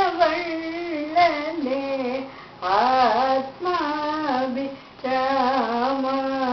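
A woman's solo voice singing a Lali song on Rama, the song of the Oonjal swing ritual, drawing out the syllables of the line in slow, gliding, ornamented phrases. Two short breaks for breath come about two and a half and five seconds in.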